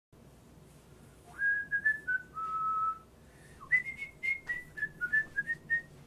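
A person whistling a short tune: a few notes ending on a long held low note, then after a brief pause a run of quick short notes.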